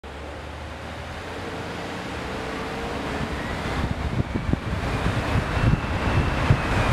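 A car driving and picking up speed: steady road and tyre noise that grows louder, with wind buffeting the microphone from about four seconds in.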